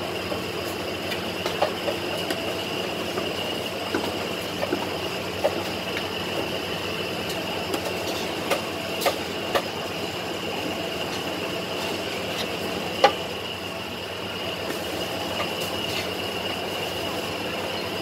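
Plastic scoop knocking and scraping against a large aluminium pot as rice is stirred: scattered sharp clicks, the loudest about thirteen seconds in, over a steady mechanical hum.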